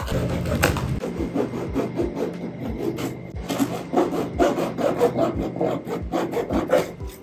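Angle grinder running and grinding the floor: a steady motor hum under a rough, uneven scraping.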